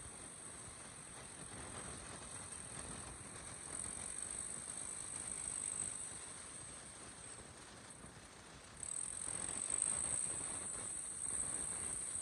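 Kubota M6040SU tractor's four-cylinder diesel engine running under load as it drags a disc plough through deep mud, over a steady high-pitched hiss. The engine noise swells in the middle and grows louder about nine seconds in.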